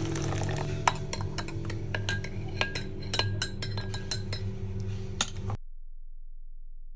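Metal teaspoon stirring in a glass mug of hot water, clinking again and again against the glass, to dissolve baking soda. The clinking stops suddenly about five and a half seconds in.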